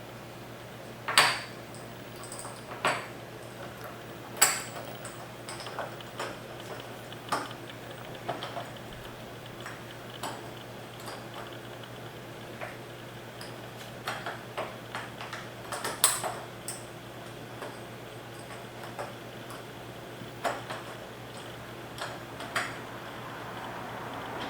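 Irregular sharp clicks, clinks and knocks of aluminium extrusions, printed parts and small steel fasteners being handled and fitted together, with a few louder knocks among many light taps.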